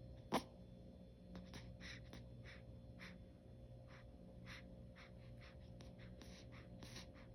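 Very quiet: a newborn's short, faint breaths, soft puffs every half second or so, with one sharp click about a third of a second in.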